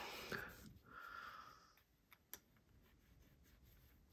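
Near silence with faint breathing, two soft breaths or sniffs in the first two seconds, and one small click a little after two seconds.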